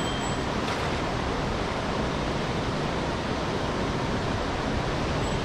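Steady rushing of a mountain stream's water.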